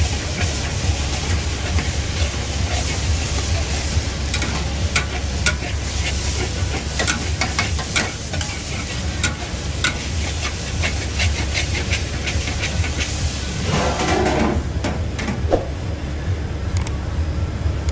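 Egg noodles and rice vermicelli sizzling and hissing in a hot wok as they are stir-fried. A steel ladle and spatula click and scrape against the wok many times, over a steady low rumble.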